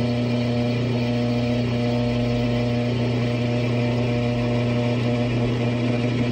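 Drill press running steadily, its electric motor giving a steady low hum.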